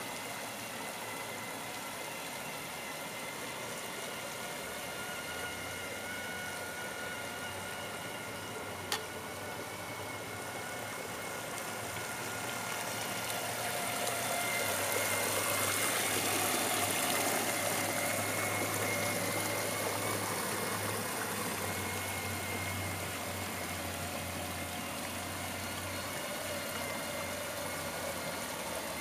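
Model paddlewheel boat driven by a 7.2-volt cordless drill motor: a steady motor whine with the stern paddlewheel churning and splashing the water, louder about halfway through as the boat passes close, then easing off. A single sharp click about nine seconds in.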